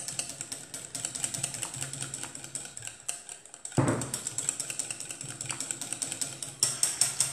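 Wire whisk beating liquid chocolate glaze in a glass bowl, its tines ticking rapidly against the glass. A single dull knock comes a little under four seconds in, and the ticking gets louder near the end.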